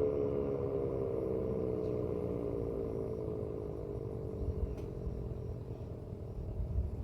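Sentry 16V2T-B outdoor warning siren winding down at the end of its test: a falling tone that fades away over about four seconds, leaving a low rumble.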